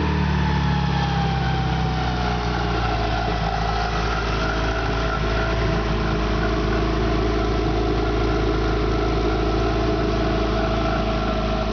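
Subaru EJ22 2.2-litre flat-four engine on a test stand, its revs falling back and settling into a steady idle within the first few seconds. A whine glides down in pitch, then holds. The engine is on a bench test of its 1991 harness and ECM and is running with no fault codes.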